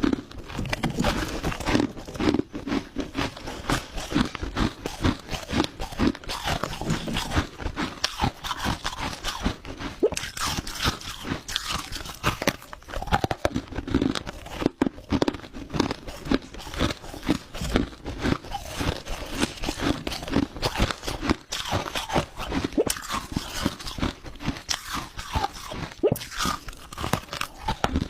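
Crushed ice being bitten and chewed close to the microphone: a continuous run of dense, crackly crunches.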